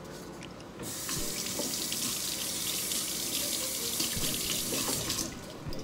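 Kitchen tap running, water pouring onto a cold brew maker's mesh filter to wet it before the coffee grounds go in. The flow starts about a second in and stops shortly before the end.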